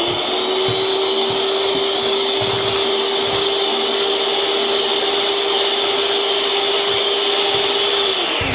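Electric hand mixer running at one steady speed, its beaters whisking a thin milk and gelatin mixture in a bowl: a steady motor whine with a hiss above it. The motor is switched off near the end and its whine falls away as it winds down.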